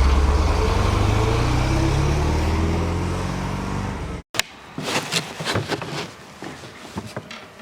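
A motor vehicle's engine accelerating, rising steadily in pitch as it fades a little, then cut off abruptly about four seconds in. A few light knocks and clicks follow.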